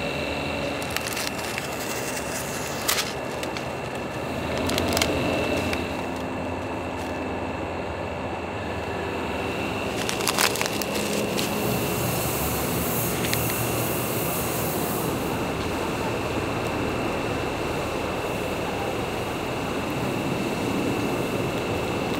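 Plastic instant-onigiri pouch being handled and opened, with a few sharp crinkles and crackles, the loudest about ten seconds in, as the desiccant sachet is pulled out. A steady background drone underlies it.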